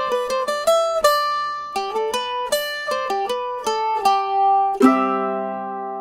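Background music: a plucked string instrument picks a quick melody of single notes, then strikes a chord near the end that rings on and fades.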